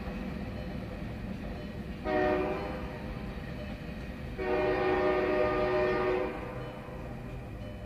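Locomotive air horn sounding a short blast about two seconds in, then a long blast of nearly two seconds, over the steady low rumble of the train. The short-then-long pattern is the close of the standard grade-crossing horn signal.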